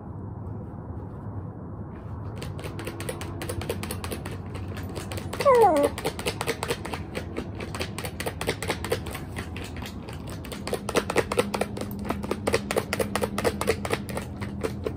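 A dog in a clear plastic cone collar scratching itself with a hind leg, making a fast run of clicks and taps as the paw and claws strike the cone and collar. A dog gives one short, falling whine about five and a half seconds in.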